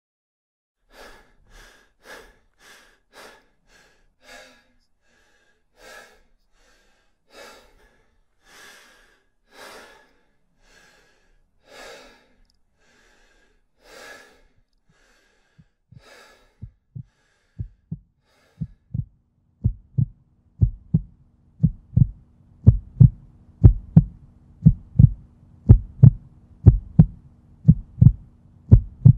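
A series of short, sharp breaths at uneven intervals. Then, from about halfway, a beat of deep thumps like a heartbeat, about two a second, that grows steadily louder. A low steady hum joins the thumps for the last third.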